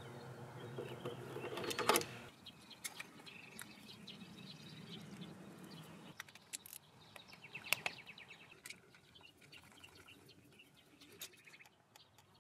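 Faint scattered clicks and taps of hand tools and parts being handled while the motorcycle's cooling system is drained of its flush water.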